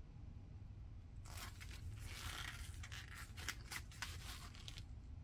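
Gloved hands handling a plastic cordless impact wrench and its battery: soft scraping and rustling with several light clicks, starting about a second in and stopping near the end.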